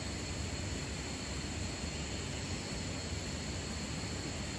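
Steady rushing of a river, an even unbroken noise.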